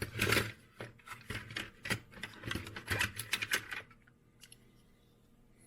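Quick clicks and light clatter of small die-cast metal toy cars being handled and set down on a hard surface, a rapid run of taps for about four seconds that then stops.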